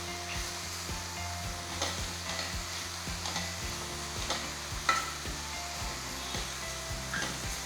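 Vegetables sizzling in butter in a frying pan while being stirred, with a few sharp clicks of the spoon against the pan. The pan holds mushrooms, baby corn, onion and freshly added spinach.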